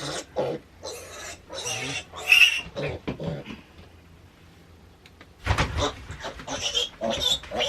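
Baby piglet squealing in short bursts as it is held and handled for its shots and castration, with a quiet gap in the middle and a thump about two-thirds of the way through.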